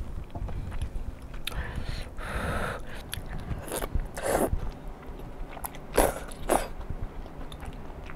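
Close-up eating sounds of wide glass noodles in a thick spicy sauce: wet slurps and chewing, with the loudest slurps about four and six seconds in.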